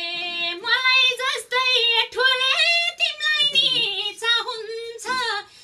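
A woman singing a Nepali dohori folk verse in a high, ornamented voice, with no drum or tambourine playing under her.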